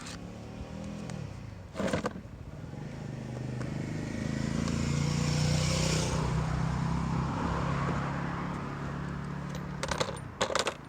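A motor vehicle passing: its engine swells over a few seconds and fades away. There are short sharp bursts about two seconds in and again near the end.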